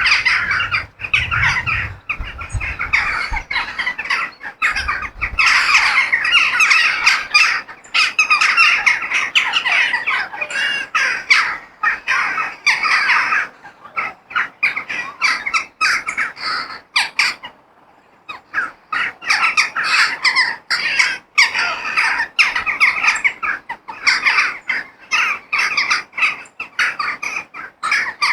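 Crows cawing, harsh calls following one another thick and fast with hardly a gap, and a short lull about two-thirds of the way through.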